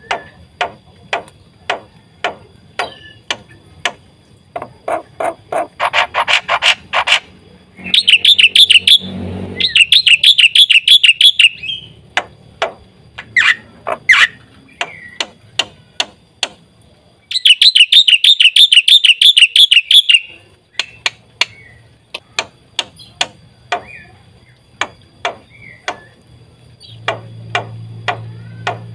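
Black-winged myna (jalak putih) singing: a string of sharp, clicky notes broken by loud, rapid trills, twice, about eight seconds in and again about seventeen seconds in.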